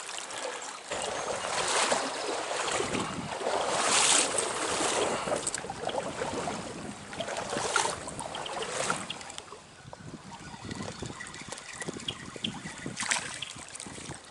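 Stream water splashing and sloshing in surges, then settling to quieter running water with a few light knocks from about ten seconds in.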